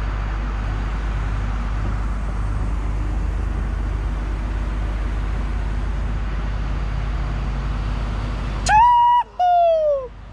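Steady low drone of the boom truck's engine running as the bucket is raised. Near the end, two loud high-pitched calls, the first held level and the second sliding down in pitch.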